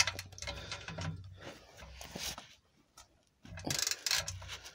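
Hand ratchet and steel socket clicking and clinking as they are fitted onto an exhaust clamp nut: one sharp click at the start, scattered light clicks, then a quicker run of ratcheting near the end.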